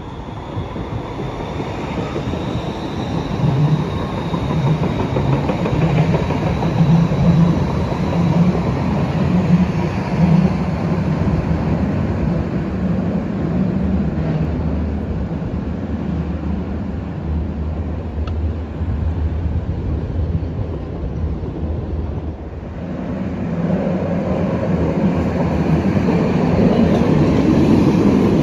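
Siemens Combino low-floor light rail train (Rheinbahn NF8U) running past on the tunnel ramp, with a steady rumble of motors and wheels on rail and a faint high whine over the first several seconds. After a short dip about 22 seconds in, a second Combino approaches, and the sound grows louder as it passes close by near the end.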